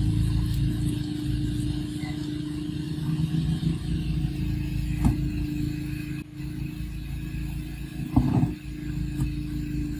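A motor running at a steady pitch throughout, with a short knock about five seconds in and a louder clatter about eight seconds in.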